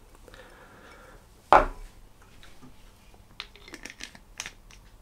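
A single short loud vocal burst from a man, such as a cough or grunt, about a second and a half in. It is followed near the end by a scatter of light clicks and taps.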